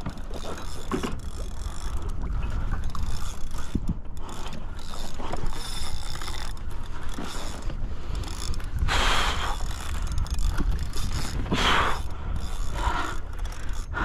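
Fishing reel being cranked with a ratcheting, clicking mechanical sound while a hooked yellowfin tuna is reeled in, over steady wind and water rumble. Two louder rushes of noise come in the second half.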